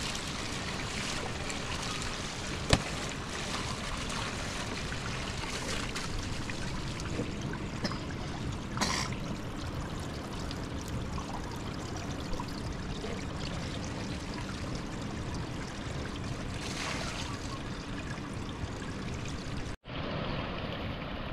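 Steady rush of flowing water, with a single sharp click about three seconds in. The sound cuts out for an instant near the end.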